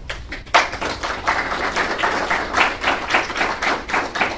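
Audience applauding, many hands clapping at once; the clapping picks up about half a second in.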